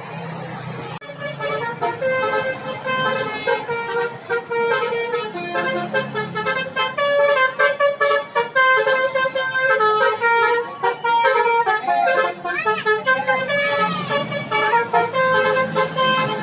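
Bus telolet horn, a Basuri multi-trumpet horn, tooting a fast melody of short notes at changing pitches, starting about a second in.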